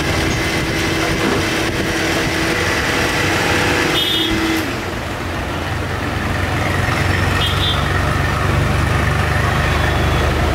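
Electric mixer-grinder running steadily as it blends a drink in its jar, switching off about halfway through. A steady low hum and background noise carry on after it stops.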